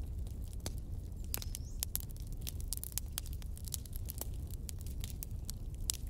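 Wood fire crackling: irregular sharp pops and snaps over a steady low rumble.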